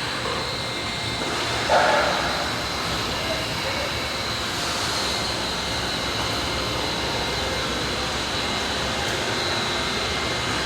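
A pipe foil-coating laminating machine running steadily, a constant mechanical hum and hiss with a thin high whine over it. About two seconds in a brief louder sound rises above the running noise.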